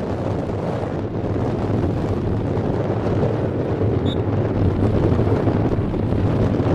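Wind buffeting the camera microphone, a steady low rumble. About four seconds in, a brief faint referee's whistle starts the faceoff.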